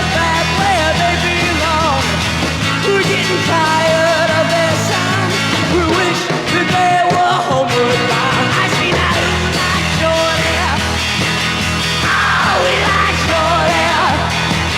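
1960s garage-rock recording playing: a rock band with yelled voices over it.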